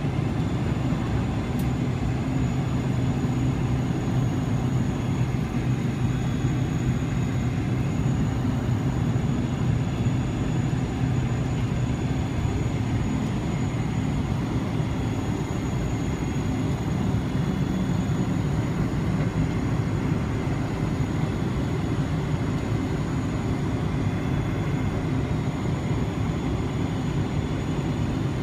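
Cabin noise of a Boeing 777-200LR taxiing, heard inside the cabin over the wing: its GE90 turbofans run steadily at low taxi power. The sound is an even, low hum with faint steady high-pitched whines above it.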